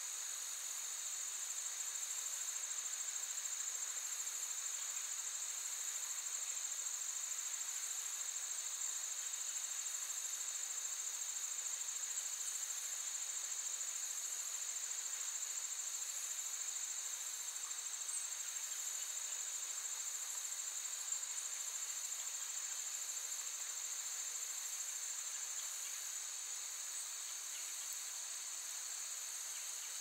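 Steady chorus of insects, a continuous high-pitched trilling drone that does not change.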